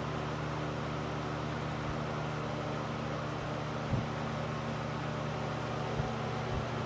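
A 1970s Mikado 12-inch box fan running on high speed: a steady rush of air over a low motor hum. Two brief faint knocks come through about 4 and 6 seconds in.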